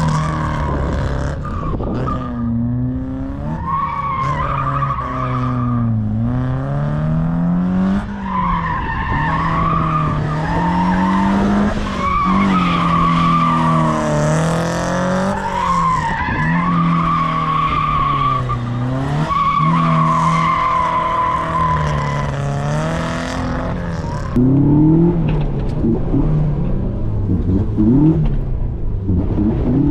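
1980s Toyota Corolla engine driven hard, revving up and falling back over and over, with long stretches of tyre squeal as the car slides through tight turns.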